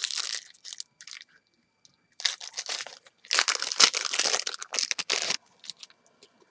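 A 2008 Topps Series 1 baseball card pack's wrapper being torn open and crinkled. It comes in three bursts, the longest from about three to five seconds in.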